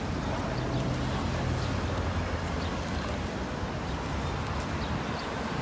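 Steady motor-vehicle noise, a low engine hum under an even wash of road and wind noise. The hum is clearest in the first two seconds.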